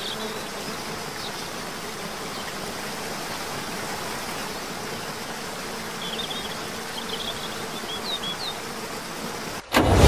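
Steady outdoor background hiss with a few faint, short bird chirps about six to eight seconds in. Just before the end a much louder, low-pitched sound cuts in suddenly.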